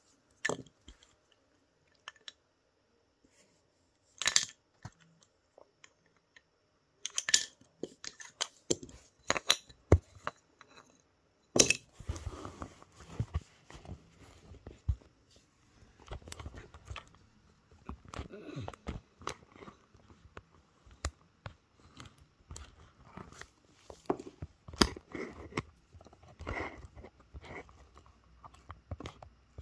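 Wooden and plastic toy train track pieces and supports being handled and set down: scattered sharp clicks and knocks, turning into denser rustling clatter from about a dozen seconds in.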